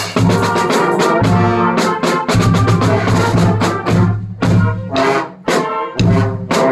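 Bells being played: a run of struck, ringing notes, several sounding together, with a couple of brief breaks.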